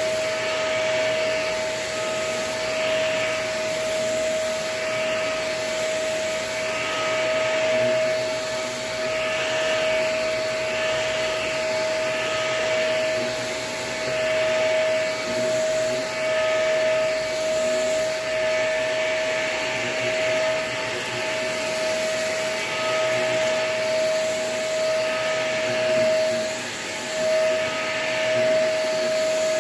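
Vacuum cleaner running with a really dirty, clogged filter: a steady motor whine under a rushing of air that swells and fades every second or two.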